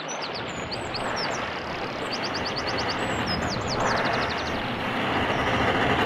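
Birds chirping in quick high notes and rapid runs of chirps, over a steady rushing noise that swells twice.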